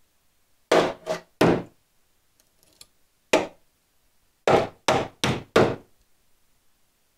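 Screwdriver jabbing and knocking into the rusted-out bottom lip of a 2003 Dodge Ram's steel tailgate: eight sharp knocks, three in quick succession, then one, then four more. The probing tests the rusted metal, which is judged too far gone to repair.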